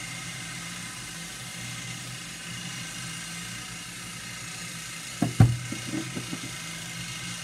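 Glass and plastic food jars, a honey jar and a peanut butter jar, knocking down onto a wooden table. One sharp loud knock about five seconds in is followed by a few lighter knocks, over a steady low background hum.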